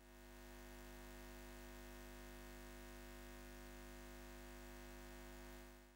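Near silence with a faint steady electrical-sounding hum that fades in at the start and fades out at the end.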